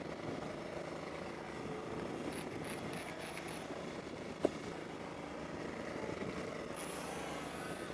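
Boat engine running steadily, with one sharp click about halfway through.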